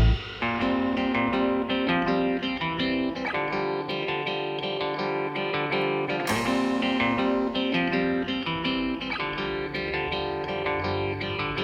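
Background music: a quiet plucked guitar passage with many layered notes, between louder full-band sections.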